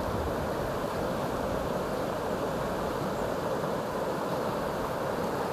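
Steady rushing of fast river water over a riffle, an even noise with no breaks.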